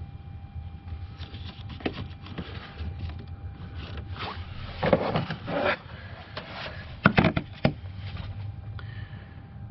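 Plastic clicks, snaps and scrapes as an under-hood fuse box lid is worked loose and lifted off, with the wiring harness rustling against it. The loudest snaps come about five seconds in and again around seven seconds, over a steady low rumble.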